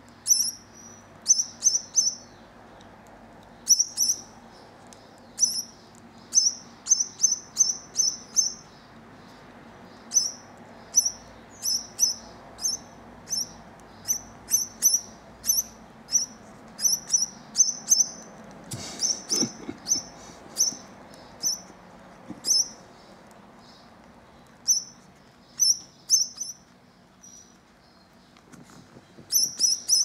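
Hand-reared turquoisine grass parrot chick (Neophema pulchella) giving short, high-pitched begging chirps over and over, often in quick pairs or threes, the hunger calls of a nestling at feeding time.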